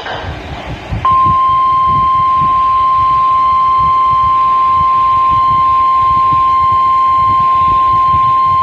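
NOAA Weather Radio warning alarm tone: a single steady 1050 Hz beep that comes on about a second in and holds unbroken over low radio static, signalling that a weather warning broadcast follows.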